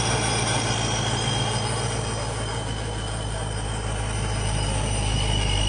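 Dodge Daytona 392's 6.4-litre HEMI V8 running steadily under way: a low drone with thin high-pitched tones over it. It eases a little in the middle and builds again near the end.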